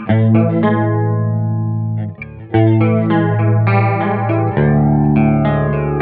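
Clean electric guitar chords played through a DOD FX75-B stereo flanger, the flanger's sweep moving through each ringing chord. New chords are struck at the start, about two and a half seconds in and again near four and a half seconds.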